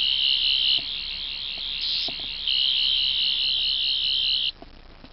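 Two toy Doctor Who sonic screwdrivers (10th and 11th Doctor models) sounding together: a loud, high-pitched warbling electronic buzz. It drops in level about a second in, comes back about two and a half seconds in, and cuts off near the end.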